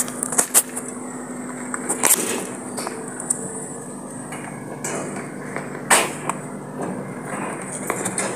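Scattered sharp knocks and rattles at a wire-mesh rabbit hutch, several of them, over a steady high hiss and a faint low hum.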